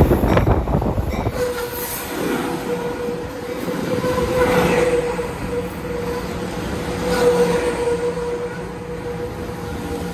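Amtrak Pacific Surfliner bilevel passenger cars rolling slowly past as the train pulls into the station. A loud rush comes as the cars first sweep by, then a steady high squeal holds on, swelling every couple of seconds as each car passes.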